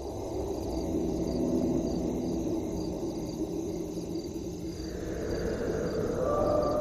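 Steady insect-like chirring over a low drone, fading in at the start. A wavering, gliding tone rises in about five seconds in.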